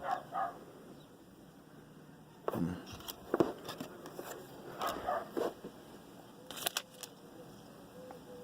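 Trading cards and foil pack wrappers being handled: scattered rustles and clicks, with a few sharper ones about three seconds in, around five seconds and near seven seconds.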